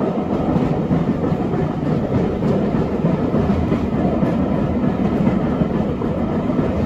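Heritage steam railway carriage running steadily along the track: the noise of its wheels on the rails, heard from inside the wood-panelled compartment.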